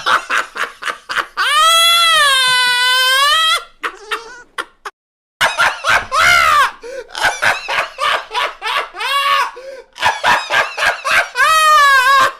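A man laughing hard: quick runs of short laugh bursts broken by long, high-pitched held shrieks of laughter, the longest lasting about two seconds.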